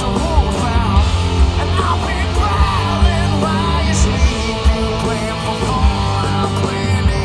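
Live Southern rock band playing an instrumental passage: electric guitars over drums and bass, with no vocals.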